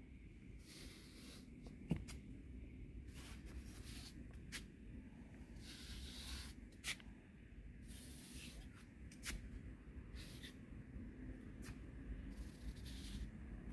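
Faint, slow barefoot footsteps scuffing on gritty stone flagstones, with a few sharp clicks and a steady low rumble from the handheld phone.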